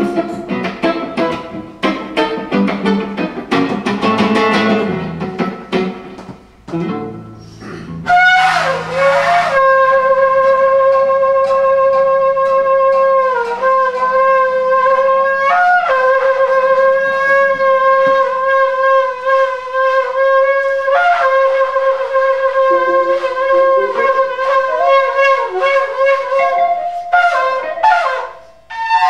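Electric guitar picking quick notes, then from about eight seconds a kudu horn blown in long held notes, sliding briefly between pitches several times.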